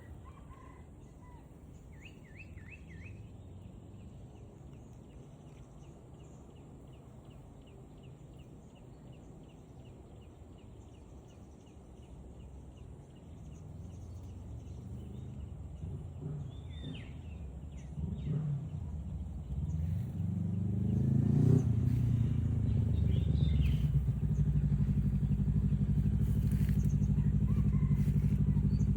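A few faint bird chirps, then a motor vehicle engine that grows steadily louder from about halfway through, rises in pitch briefly, and runs steadily and loud near the end.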